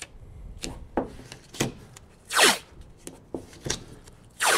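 Blue painter's tape ripped off the roll twice, about two seconds apart, each rip dropping in pitch, with lighter rubbing and tapping as strips are pressed onto the van door's sheet metal. The tape masks a freshly drilled hole against spray-paint overspray.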